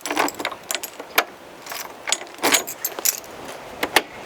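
A bunch of keys jangling, a quick irregular run of small metallic clinks.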